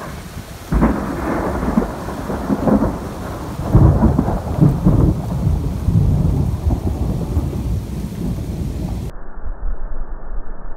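Thunder rumbling through a rainstorm, loudest about four seconds in, over a steady hiss of rain. About nine seconds in, the sound suddenly turns muffled as its higher part cuts off.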